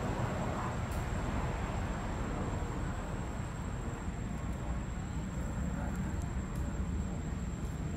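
Steady low rumble of outdoor background noise, with a thin, constant high-pitched whine above it.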